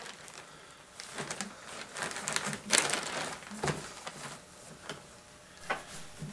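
Plastic sheeting and towels rustling and crinkling as gloved hands pat and spread out a damp deer hide: a run of short, irregular rustles, loudest a little under three seconds in.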